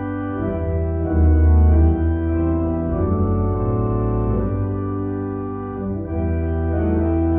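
Organ playing a postlude: sustained chords over a strong bass line, with the notes changing every second or so.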